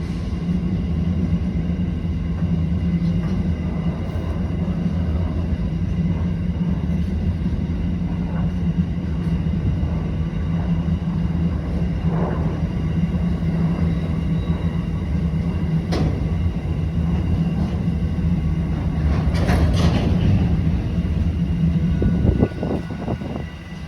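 CBH grain train's diesel locomotives passing, their engines running with a steady low drone over rail noise. A few sharp clicks and a brief brighter burst come from the wheels and rails about two-thirds of the way through.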